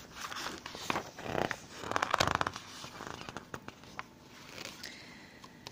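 A storybook's page being turned by hand, the paper rustling with a few light handling clicks, most of it between about one and two and a half seconds in.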